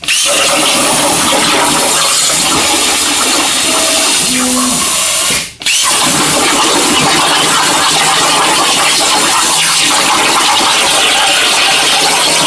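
Hypertherm Powermax45 plasma cutter on a CNC table, its arc cutting with a loud, steady hiss. The sound drops out briefly twice, at the start and about five and a half seconds in.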